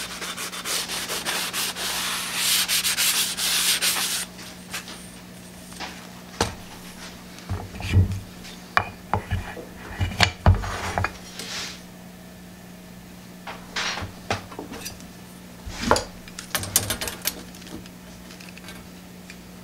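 A sanding block rubs briskly over a wooden lion-shaped form for about four seconds with a dense scratchy sound. After that come scattered taps, knocks and dull thumps as a copper strip is handled and pressed against the wooden form. A faint steady hum runs underneath.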